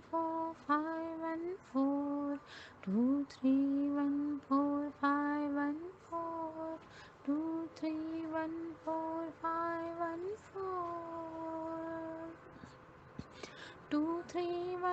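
A woman's voice chanting the digits of a number code in a sing-song melody, one syllable per short note. She holds one longer note about ten seconds in, pauses briefly, then starts the chant again near the end.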